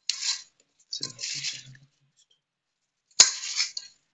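Plastic-gloved hands rubbing oil into dry maida flour in a steel bowl, making crumbly rustling and squishing sounds in short bursts. A single sharp clink comes about three seconds in.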